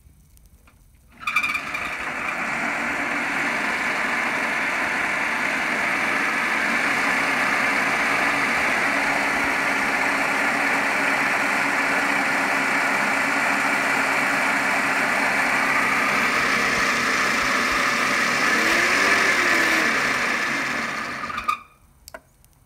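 MY1020 DC motor, a 48 V motor fed 36 V from two 18 V Ozito batteries through a PWM speed controller, starts suddenly about a second in and runs with a steady whine. Near the end its pitch briefly rises and falls, and then it cuts off.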